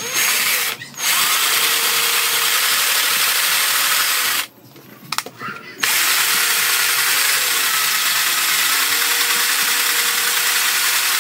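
Cordless drill spinning the shaft of a homemade RC truck rear axle in a PVC housing, running in bursts: a short one at the start, then a run of about three and a half seconds, a pause of about a second near the middle, and another long run to near the end.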